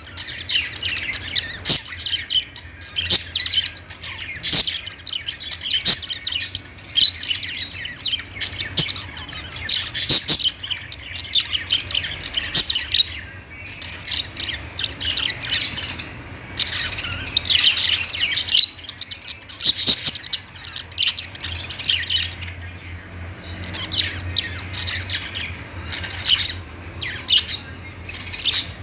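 Budgerigars (parakeets) chirping and chattering, many quick high calls overlapping one another, easing off for a moment about halfway through. A faint steady low hum sits underneath.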